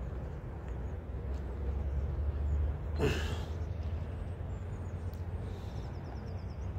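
Outdoor waterside ambience: a steady low rumble, one short breathy sound about three seconds in, and a few faint high chirps near the end.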